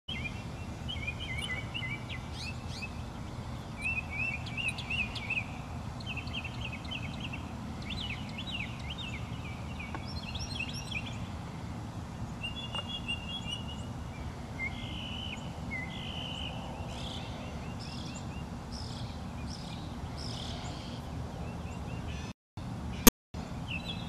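Birds chirping and calling in the trees, short repeated notes and quick trills one after another, over a steady low background rumble. Near the end the sound cuts out briefly twice around a sharp, loud click.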